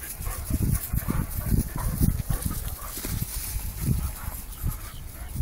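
Puppies, a weimaraner among them, play-fighting, with low growls and scuffling in irregular bursts.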